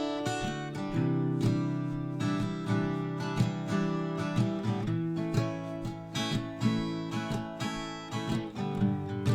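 Music with strummed acoustic guitar, a steady run of chords.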